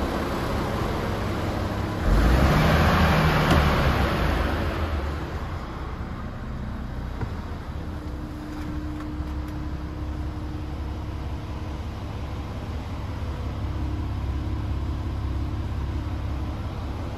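DAF XF106's Paccar 510 bhp engine idling with a steady low rumble, heard from at and inside the open cab. About two seconds in, a louder rushing noise starts suddenly and fades away over a few seconds.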